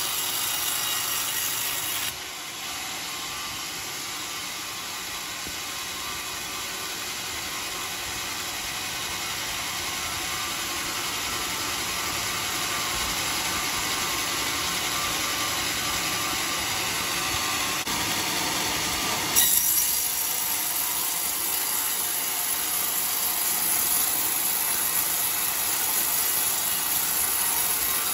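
Homemade band sawmill's steel blade cutting lengthwise through a coconut-palm log: a steady rushing hiss of sawing with machine noise under it. It drops in level about two seconds in, and jumps back up with a brief sharp knock a little before the twenty-second mark.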